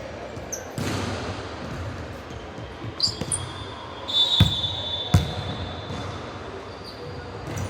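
Indoor basketball game: the ball bounces with a couple of sharp thuds on the court, sneakers squeak, and a short high whistle sounds midway, over gym hubbub with hall echo.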